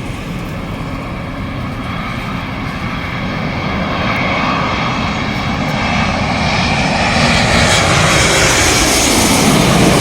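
Jet airliner on landing approach passing low overhead, its engine noise growing steadily louder, with a shifting sweep in the sound near the end as it goes by.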